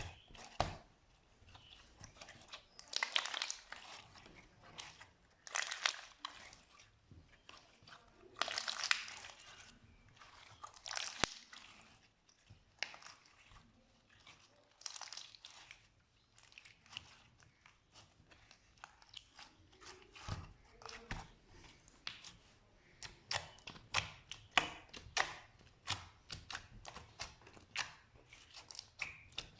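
Slime being squeezed and worked by hand, in repeated bursts of crackling and popping, with a quick run of small pops toward the end.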